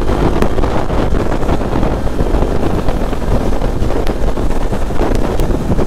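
Wind rushing over the microphone of a riding motorcycle at about 55–60 km/h, with the BMW G 310 RR's single-cylinder engine running steadily underneath.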